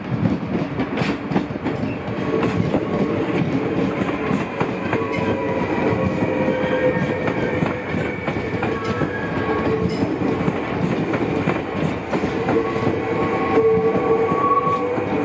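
Dutch NS double-deck electric train rolling out over a set of switches: a steady rumble with irregular wheel clicks across the points and rail joints, and thin, drawn-out squealing tones from the wheels on the curves.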